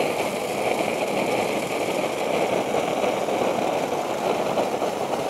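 Homemade copper coil jet alcohol stove burning flat out, its jets giving a steady roar.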